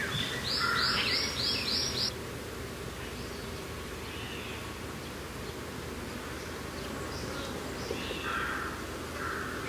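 Birds singing over steady mountain wind: a quick run of five repeated high notes in the first two seconds, then a few faint scattered calls.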